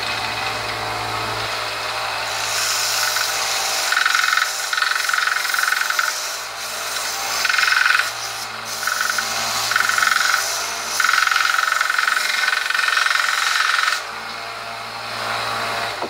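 A 1x30 bench belt sander used as a belt grinder runs with a steady motor hum while steel is pressed against the belt in several passes, a hissing grind with a whine that comes and goes. The grinding stops about two seconds before the end and the motor keeps running.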